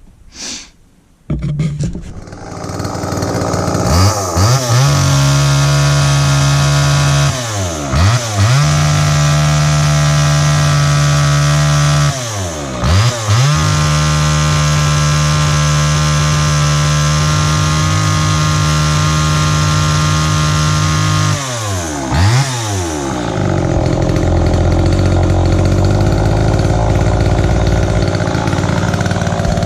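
Homelite XL Automatic chainsaw's two-stroke engine starting about a second in and running at high revs, with three brief drops off the throttle that climb back, then settling to a lower idle near the end. It is run up to show the repaired automatic oiler throwing bar oil.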